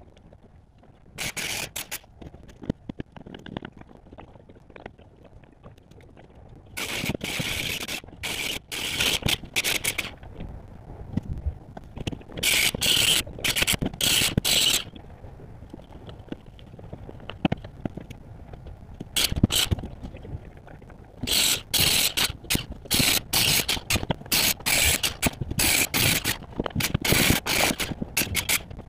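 Wooden deck being torn out: choppy bursts of scraping and knocking as boards and framing are pried up and dragged, coming in clusters that start and stop abruptly, busiest in the second half.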